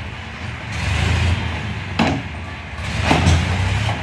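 Tractor engine running with a steady low rumble while the tipping trailer stands raised after unloading wet sand. A couple of sharp knocks come about two and three seconds in.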